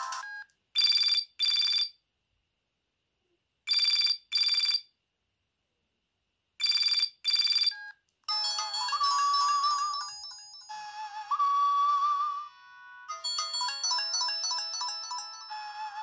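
Sendo S360 mobile phone ringtones: a double-beep ring repeated three times, about three seconds apart, then a polyphonic melody ringtone that starts about eight seconds in.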